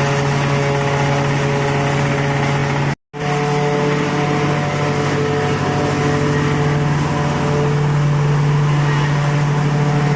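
Horizontal wood chipper running steadily: a strong low engine hum with a noisy grinding haze over it. The sound cuts out completely for a moment about three seconds in, then carries on the same.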